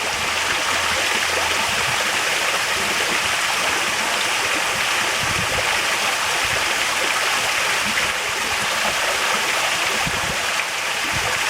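Water from an artificial rock waterfall pouring steadily into a swimming pool, an even splashing hiss.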